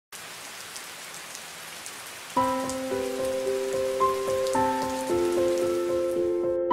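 Steady rain falling, with piano music coming in about two and a half seconds in; the rain cuts off suddenly near the end while the piano plays on.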